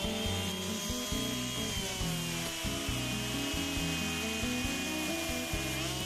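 Two-stroke chainsaw running at full throttle while cutting through a small tree stem, its pitch sagging slowly under the load of the cut. Background music with a stepping bassline plays under it.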